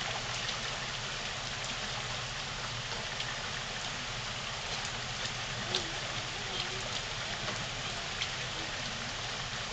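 Steady rain falling on wet pavement and lawn, a constant even hiss with a few faint ticks scattered through it.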